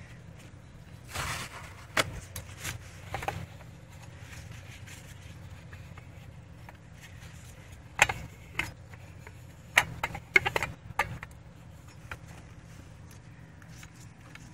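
Blue shop towel rustling and scraping against a trailer wheel hub as excess grease is wiped off, with a few sharp clicks in two clusters, one near the start and one a little past the middle, over a steady low rumble.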